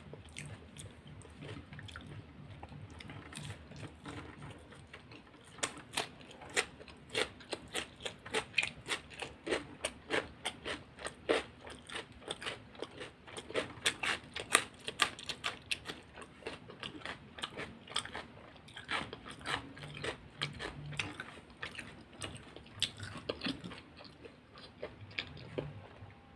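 A person chewing crunchy food close to the microphone, a rapid run of crunches and bites that is densest in the middle and thins out toward the end.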